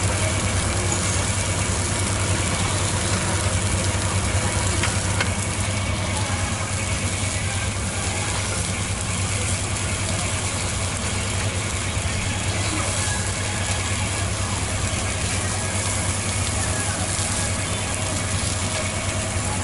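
Exhaust fan over a charcoal skewer grill running with a steady low hum and an even rushing noise.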